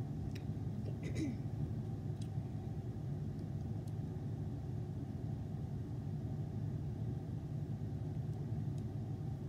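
Steady low hum of a window air conditioner running, with a few faint clicks in the first couple of seconds.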